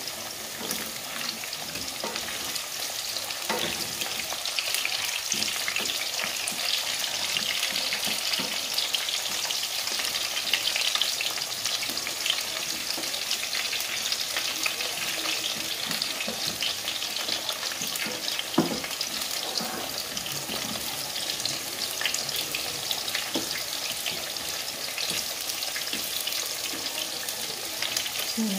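Sweet potato chunks deep-frying in hot oil in a pan: a steady bubbling sizzle, with a few light knocks as a wooden spatula turns them.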